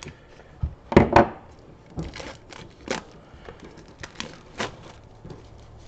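Pocket knife slicing through the plastic wrap and seals of a small cardboard box, then the box flap being worked open: a string of short crackles, scrapes and clicks, loudest about a second in.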